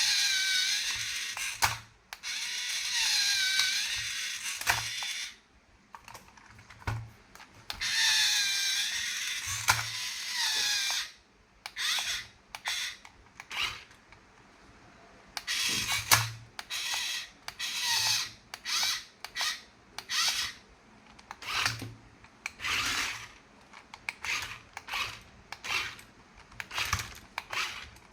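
Small geared toy mechanism whirring with a wavering whine in two runs of a few seconds, then a string of short clicky, ratcheting bursts.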